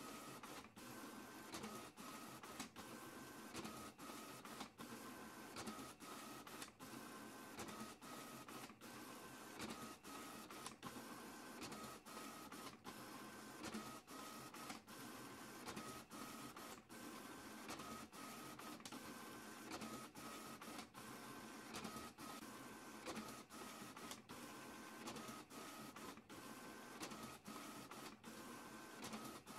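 Printer running continuously: a steady mechanical whir with short breaks about once a second and a faint tone that comes and goes.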